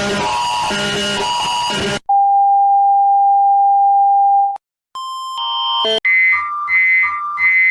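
A run of electronic emergency alert tones. A pulsing, buzzy alarm cuts off about two seconds in, then a steady single beep lasts about two and a half seconds. After a brief break comes a high alert tone that switches back and forth between two pitches three times.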